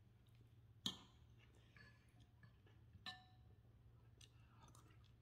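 A metal spoon clinking twice against a ceramic bowl, about two seconds apart, the second clink ringing briefly; a few faint ticks between, over quiet room tone.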